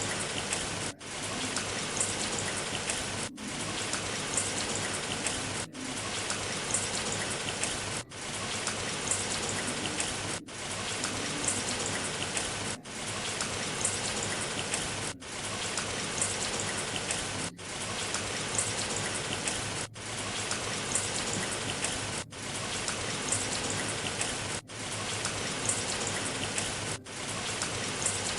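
Steady rain falling, an even hiss with scattered drop ticks, broken by a brief dip in level about every two and a half seconds.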